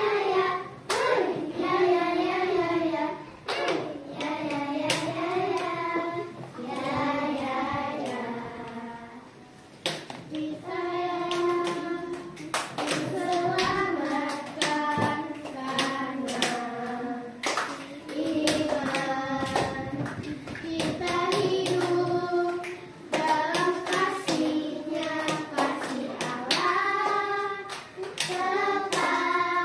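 A group of young girls singing a song together, with held notes and a short break about a third of the way through, and sharp hand claps along with the singing.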